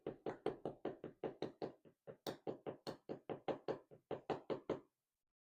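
Rapid, even knocking at about five knocks a second, with two brief pauses: a Medeco LFIC lock core being tapped to knock its remaining pins out.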